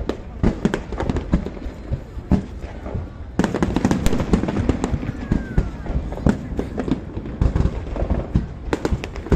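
Aerial firework shells bursting in rapid succession, many overlapping bangs. The barrage gets louder and denser about a third of the way in.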